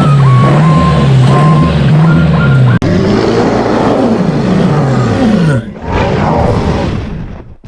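Heavy truck engine running with short repeated reversing-alarm beeps. After an abrupt cut about three seconds in, an engine revs up and back down.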